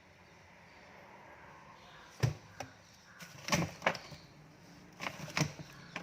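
A series of sharp clicks and knocks from hard objects being handled and set down, in three quick clusters starting about two seconds in.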